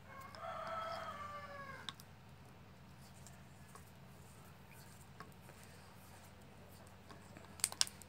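A rooster crowing once, a call of nearly two seconds that falls in pitch at its end. Then only a low steady hum, with a few sharp clicks near the end.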